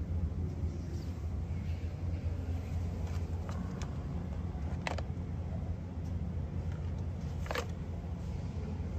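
Steady low hum of supermarket ambience, with a few sharp clicks and plastic crinkles as packaged meat is handled. The two loudest clicks come about halfway through and about three-quarters of the way through.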